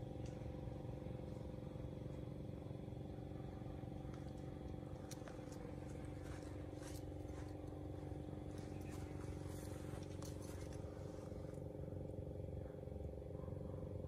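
Steady low mechanical drone, like an engine running, holding several fixed pitches, with a scatter of faint light clicks through the middle.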